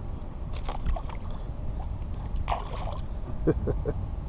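Wind rumbling on the microphone aboard a kayak, with a few short clatters of gear being handled and some brief bits of a man's voice near the end.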